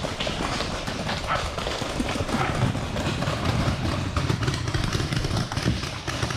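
Running footsteps thudding in an uneven rhythm, with loose gear rattling and a heavy low rumble of movement on the body-worn microphone.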